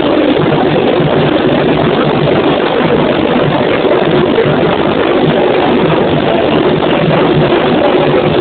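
Samba bateria playing: a dense, unbroken wall of drums and percussion, with a regular low drum pulse underneath.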